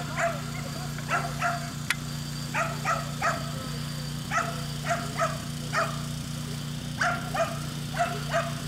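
A dog barking over and over, often in quick pairs, about fifteen barks in all, over a steady low hum.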